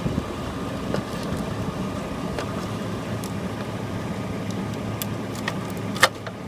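GMC Sierra pickup's engine idling steadily, with a few sharp clicks and taps over it; the loudest click comes near the end.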